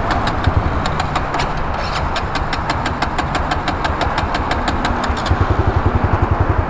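Honda CRF110 pit bike's small single-cylinder engine being cranked over with a rapid, even ticking, not starting after it went through water.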